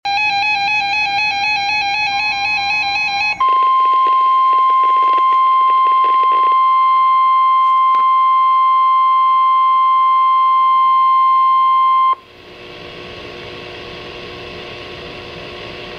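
Weather radio Emergency Alert System activation: a warbling burst of SAME header data, then the steady 1050 Hz warning alarm tone held for about nine seconds. The tone cuts off sharply to a steady hiss of radio static with a faint hum.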